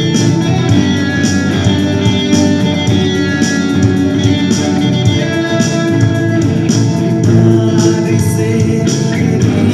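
Live Hindi Christian worship song: a man singing to strummed acoustic guitar, with an amplified electric guitar playing along.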